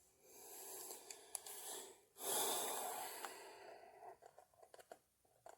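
A person breathing close to the microphone: two long breaths, one after the other, with a few faint clicks.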